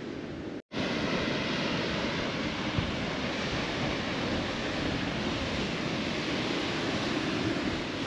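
Steady rushing wind noise, after a brief dropout less than a second in.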